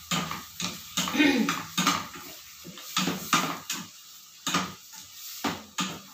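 A slotted spatula clacking and scraping against a frying pan as shrimp and onions are stirred, in repeated irregular strikes.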